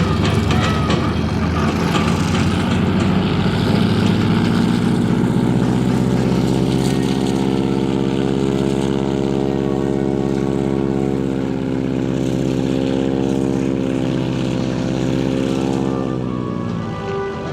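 Formation of three T-34 Mentor airplanes making a low flyby, their engines and propellers running in a steady drone whose pitch drops near the end as they pass.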